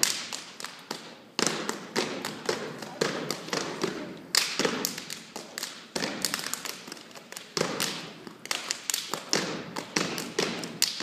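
A step team stomping boots on a stage floor and clapping hands in a fast, syncopated rhythm of sharp claps and thuds, several a second, with no music.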